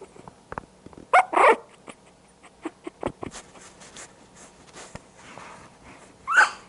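Young puppies giving short, high-pitched yips: two close together about a second in and a louder one near the end. Scattered clicks and bumps, as of paws and fur against the camera, fall between them.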